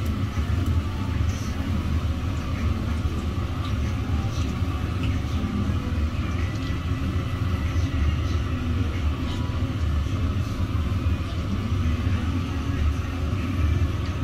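Donuts deep-frying in a fryer over a steady low rumble, with a few faint light clicks scattered through.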